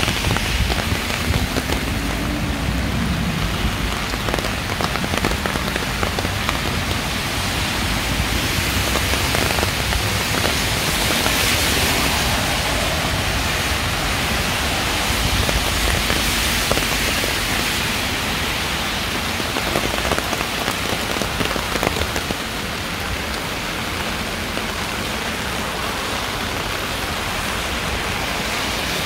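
Steady rain falling and splashing on hard surfaces, with scattered individual drops ticking through the hiss.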